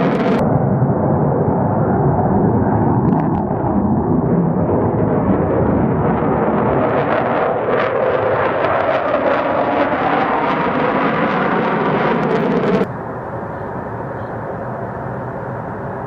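F-16 Fighting Falcon's jet engine in full afterburner on a takeoff run, loud and steady. It cuts off abruptly near the end and gives way to a quieter, steady distant jet engine noise.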